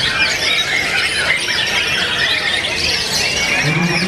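Caged white-rumped shamas (murai batu) singing against one another in competition: a dense, unbroken tangle of many loud, overlapping whistles, trills and chattering calls. A man's voice comes in near the end.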